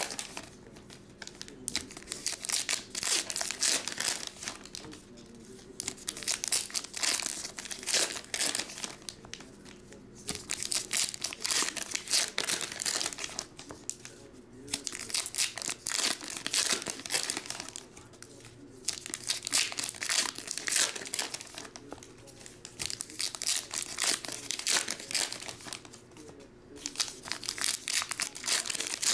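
Plastic trading-card pack wrappers crinkling and tearing as they are ripped open by hand, one pack after another. The crackling comes in bursts of a few seconds with short quieter gaps between.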